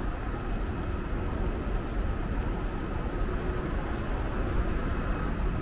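City street traffic: a steady low rumble of vehicle engines and tyres, with faint steady tones over it.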